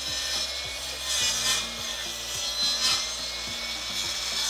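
DeWalt mitre saw's spinning blade cutting down through a log, a loud, steady hiss that swells twice and stops abruptly near the end as the blade clears the wood.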